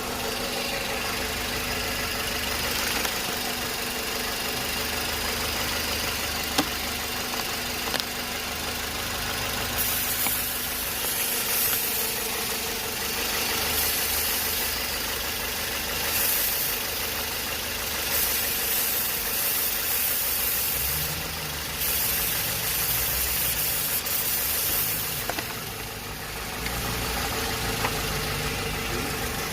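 Toyota Yaris engine idling steadily while being checked for a suspected vacuum leak behind a lean-running code (P0171). Stretches of high hiss come and go from about ten seconds in until a few seconds before the end.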